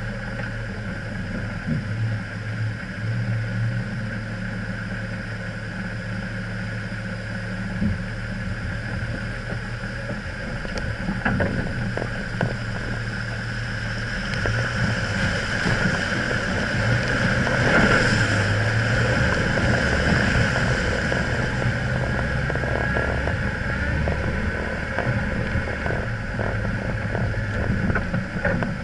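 Off-road vehicle's engine running at low speed while it fords a rocky mountain river. Rushing and splashing water swells a little past halfway, with a few knocks from stones under the vehicle.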